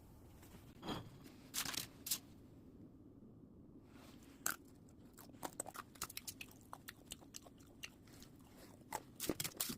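Someone biting and chewing crisp sweet potato sticks: a few crunches, a short pause, then a run of quick small crunches that grows denser near the end.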